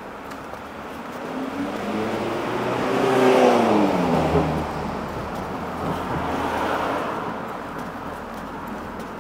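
A car drives past, loudest about three and a half seconds in, its engine note dropping in pitch as it goes by. A second vehicle passes more quietly around six to seven seconds in.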